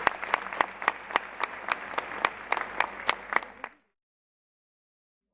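Audience applauding, with one person's sharp claps close by at about five a second over the crowd's clapping; the sound cuts off abruptly about four seconds in.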